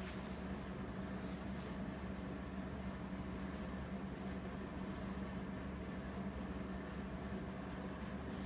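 Marker pen writing a signature on fabric: faint, scattered scratchy strokes over a steady low hum.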